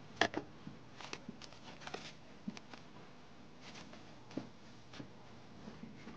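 Plastic cling film crinkling as it is pressed around the rim of a glass bowl, heard as a scatter of short crackles and small taps, the loudest about a quarter second in.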